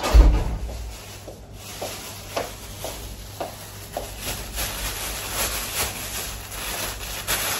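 A sudden thump at the start, then rustling and a string of light knocks and clicks, about two a second, from small household things being handled.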